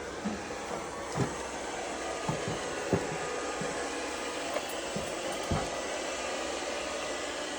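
Robot vacuum running with a steady whirring hum, with a few light knocks during the run.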